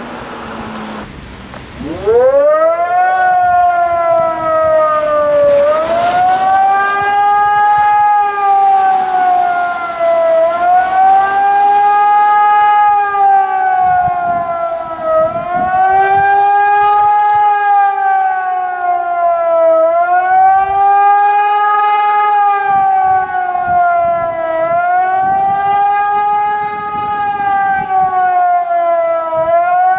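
Hörmann ECN 1200 electronic high-power civil-defence sirens sounding the public warning signal. Starting about two seconds in, the wail rises sharply, then swells up and down in pitch about once every four to five seconds.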